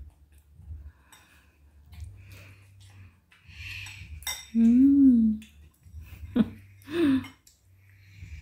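Spoons clinking against bowls during a meal. About five seconds in comes a short wordless vocal sound that rises and falls in pitch, the loudest thing here, and another brief one follows near seven seconds.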